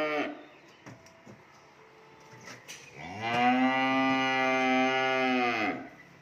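Cow mooing: the end of one moo right at the start, then one long, steady moo of about three seconds beginning about three seconds in.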